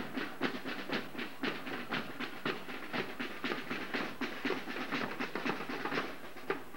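Marching drum line of snare drums and bass drums playing a steady marching beat, with quick, evenly spaced strokes, several a second.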